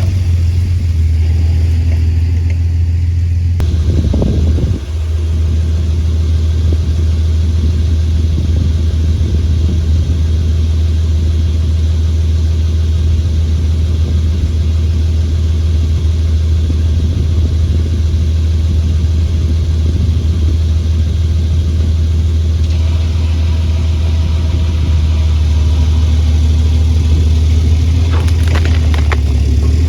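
A vehicle engine running steadily as a loud, low drone, with a brief dip about five seconds in.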